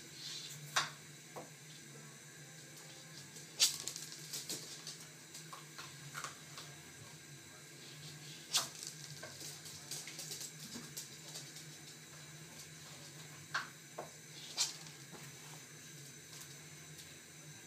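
West Highland White Terrier eating dry food pieces off a laminate floor: scattered sharp clicks and crunches at uneven intervals, a few louder than the rest, over a faint steady low hum.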